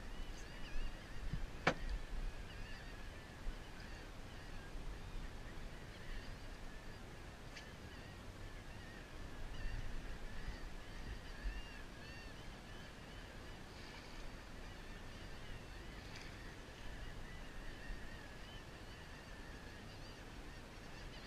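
A flock of seabirds calling over the water: many overlapping short, wavering calls, with a low wind or boat rumble underneath and a single sharp knock about two seconds in.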